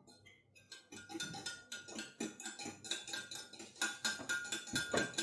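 A fork beating an egg in a small glass: quick, continuous clinks of metal on glass with a light ringing from the glass, louder from about a second in.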